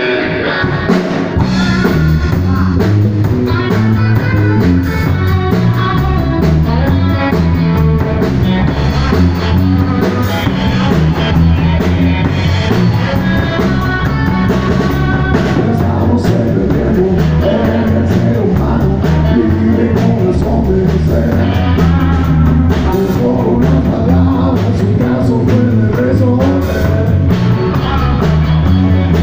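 Live band playing with electric guitars and a drum kit. The drums and low end come in about a second in after a guitar opening, then the band plays steadily throughout.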